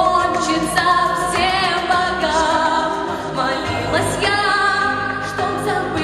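A woman singing solo into a microphone over instrumental accompaniment, with long held notes that waver in vibrato.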